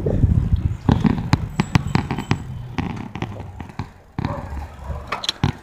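A run of irregular light clicks and knocks that grow fainter.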